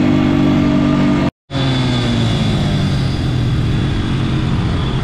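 Quad bike engine running steadily. The sound drops out for a moment about a second and a half in, then the engine carries on at a lower pitch.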